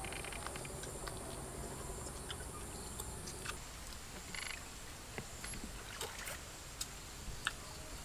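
Quiet outdoor background noise with a few scattered soft clicks and smacks of people eating grilled pork ribs with their hands.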